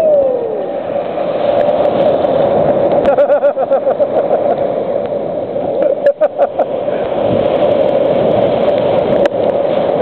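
Black Sea surf breaking and churning in the shallows, with water washing and splashing right against a waterproof compact camera held at the surface.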